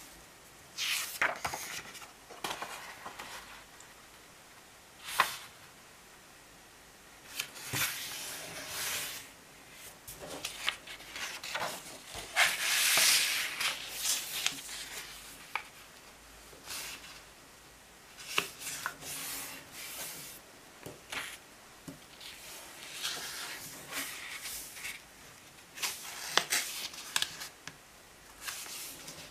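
A sheet of A4 paper handled and folded by hand on a table: irregular rustling and sliding, broken by short sharp clicks as the folds are pressed and creased flat with the fingers, with a longer stretch of rustling about halfway through.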